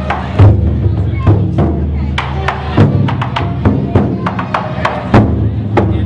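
Taiko-style barrel drum played with wooden sticks: deep drum hits mixed with many sharp wooden clacks in a quick, uneven rhythm, over a low, sustained hum.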